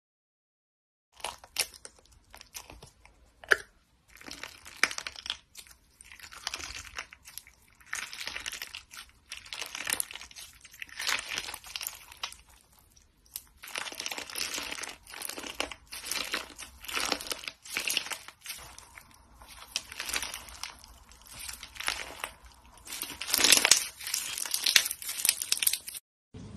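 Slime being squeezed and stretched by hand, here clear slime packed with colourful jelly pieces, giving irregular crunching and crackling that comes in uneven bursts. It starts about a second in and grows louder near the end.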